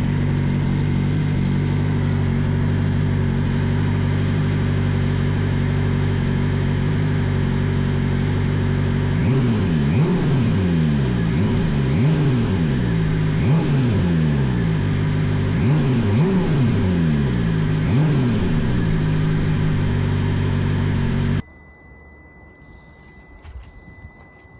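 BMW S1000RR inline-four engine running through a slip-on SC Project exhaust: a steady idle, then a series of quick throttle blips revving up and falling back, before it stops suddenly about 21 seconds in.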